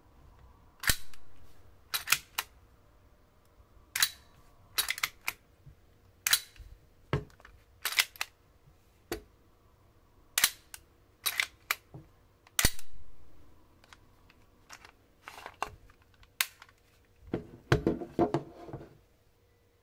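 Sharp clicks of a SIG Sauer P320 M17 airsoft gas blowback pistol's levers and parts being worked by hand, about a dozen separate clicks spaced a second or so apart, then a quick run of rattling clicks near the end.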